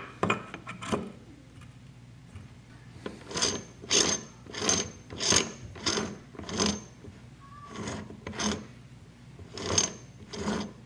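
Hand work on metal parts: a few sharp clicks, then a run of short rasping, ratchet-like strokes about one and a half a second apart, with a pause a little past the middle.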